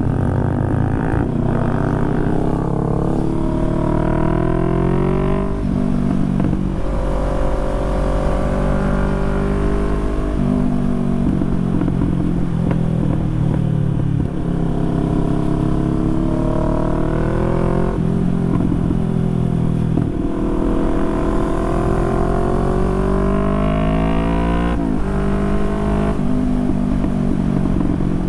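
Harley-Davidson V-twin motorcycle engine under way, its pitch repeatedly climbing under acceleration and falling back at the gear shifts.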